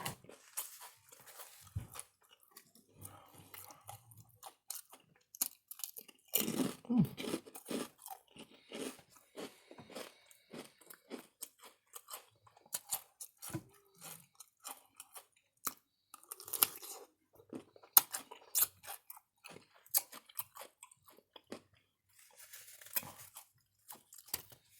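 Close-up crunching and chewing of barbecue kettle-style potato chips: many short, sharp crunches in irregular bursts, loudest about six to eight seconds in.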